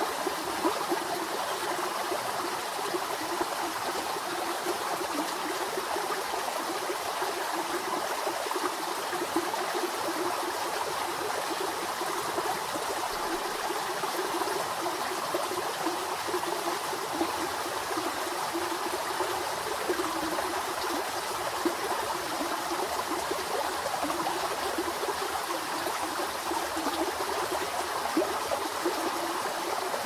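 Creek water flowing steadily, an even rushing and trickling with brief louder splashes now and then.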